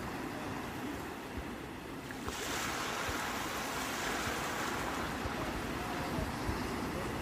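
Sea waves washing onto the shore: a steady low rumble of surf, with a wave breaking about two seconds in and its hissing wash slowly fading.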